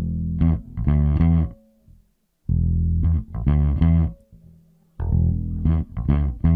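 Bass guitar track playing a riff in short phrases with brief gaps, its low band compressed by a multiband compressor and its output turned up to make the low end more solid.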